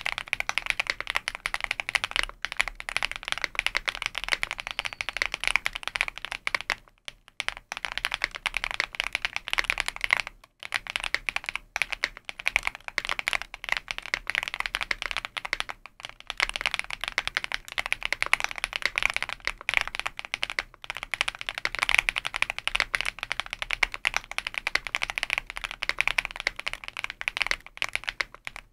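Continuous fast typing on an Epomaker V75 Plus gasket-mounted mechanical keyboard in its stock build, with factory-lubed switches, a PC plate and full foam, fitted with the stock Epomaker Roma keycaps. It runs as a dense stream of keystrokes, with short pauses about seven, ten and sixteen seconds in.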